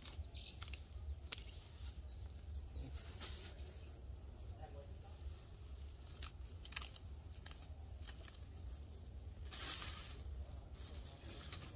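Scissors snipping through grass stems in scattered sharp clicks, with a rustle of cut grass being pushed into a plastic bag near the end. A high, fast-pulsing insect call runs faintly underneath.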